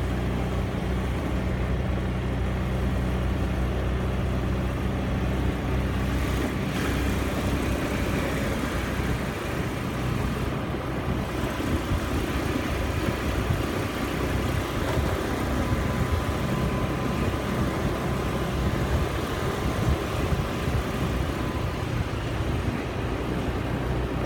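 A motor vehicle driving along a road, its engine running steadily under a rumble of road noise that grows rougher and more uneven after about six seconds.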